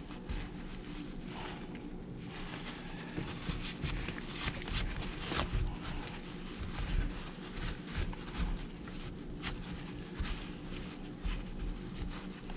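Irregular scraping, rubbing and light clicking of hands cleaning a partly dismantled chainsaw, over a steady low hum.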